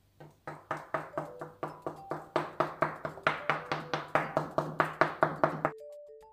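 Rapid, even taps of a metal fork pricking dough down onto a wooden board, about five a second, over soft background music. The tapping stops suddenly near the end, leaving the music.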